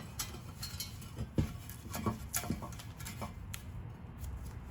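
Scattered light clicks and scrapes, irregularly spaced, of a tool picking burnt debris off and out of a rusted steel exhaust header.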